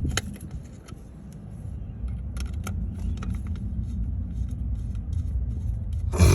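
Low steady rumble with scattered light clicks, like hand tools on metal, and a single loud knock about six seconds in.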